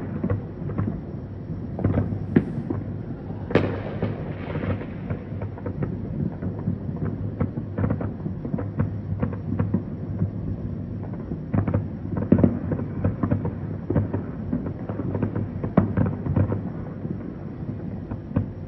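Distant fireworks going off all around: many irregular, overlapping booms and pops over a low rumble. About three and a half seconds in comes a sharper bang, followed by a brief crackle.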